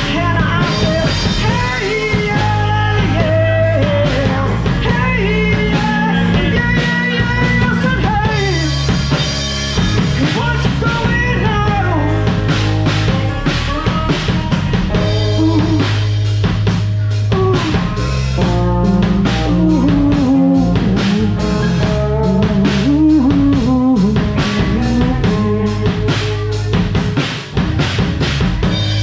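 Live rock band playing through a bar PA: drum kit, electric guitars and bass, with a singer's melody over them. The drums keep a steady beat, more prominent in the second half.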